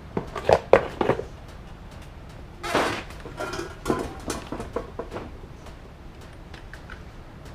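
Metal engine parts and tools being handled and set down on a bench: a quick run of knocks and clinks in the first second, a scrape about three seconds in, then a few lighter clinks.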